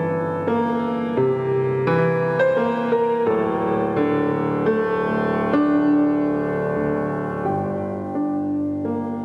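Slow, gentle instrumental intro music led by piano, with held notes changing about every half second to a second.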